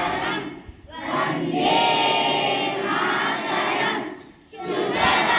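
A large group of students' voices chanting together in unison, in long phrases broken by brief pauses.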